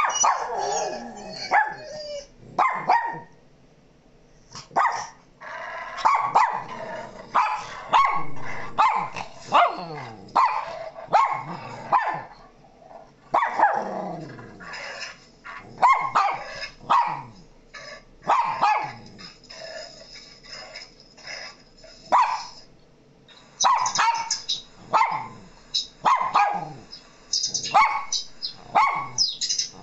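Dog barking and howling in repeated bouts, many of the calls sliding down in pitch, with short pauses between bouts.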